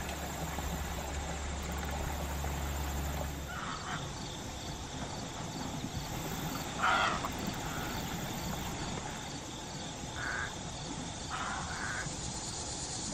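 Egrets giving harsh croaking squawks, about five short calls a few seconds apart, the loudest about seven seconds in, during a squabble.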